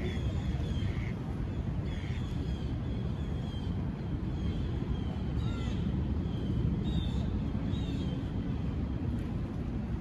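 Outdoor city-park ambience: a steady low rumble of distant traffic, with birds chirping repeatedly in short, falling calls.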